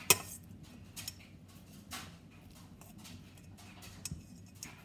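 Metal fork mashing bananas in a stainless steel mixing bowl, the tines clinking and tapping against the bowl at irregular intervals, the loudest clink at the very start.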